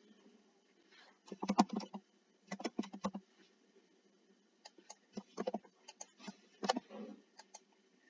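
Typing on a computer keyboard: four short bursts of quick key clicks with pauses between them.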